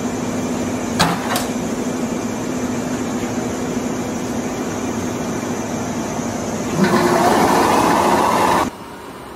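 Parked limited express electric train humming steadily at standstill, with two sharp knocks about a second in. Near the end, a louder rushing noise with a held tone in it cuts off suddenly.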